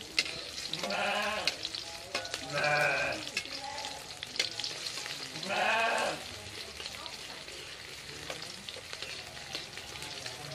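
Shallots and garlic frying in hot oil in a pan, crackling and sizzling steadily, stirred with a spoon while they cook until fragrant. Three short, loud pitched calls cut across the sizzle about one, three and six seconds in.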